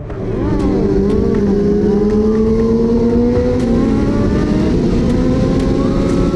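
Sport motorcycle engine running hard at highway speed, heard from on the bike. It revs up and down quickly in the first second or so, then holds a steady note that climbs slowly in pitch as it accelerates, over a rush of wind and road noise.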